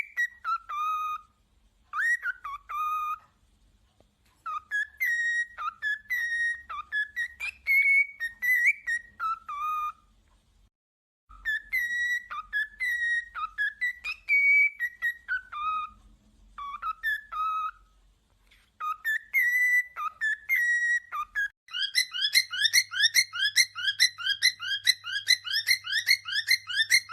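A songbird singing clear whistled notes that slide between higher and lower pitches, in phrases separated by short pauses. About four-fifths of the way through it switches to a fast, evenly repeated trill.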